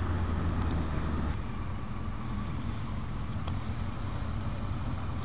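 Motorcycle engine running at low speed in town traffic. Its low, steady note drops back about a second in as the bike slows to pull up.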